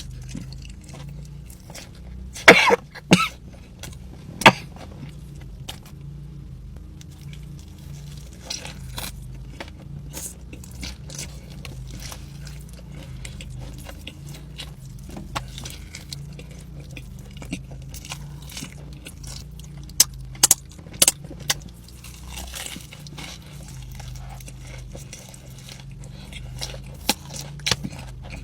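Close-miked eating: a few loud, crisp bites or crunches about two to four seconds in, another cluster around twenty seconds and a couple near the end, with quieter chewing clicks between, over a steady low hum.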